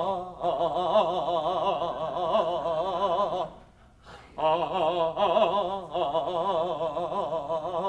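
Zarzuela singing: a voice with a wide vibrato holds a long note. It breaks off about three and a half seconds in and comes back a second later on another long held note.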